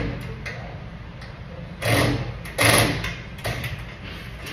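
Two short bursts of a small power tool, about two and three seconds in, with light clicks between: hardware being fastened on a truck hood.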